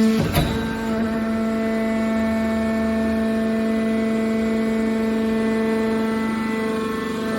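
Hydraulic baling press for aluminium cans running, its pump unit giving a steady, even hum, with one sharp clunk shortly after the start.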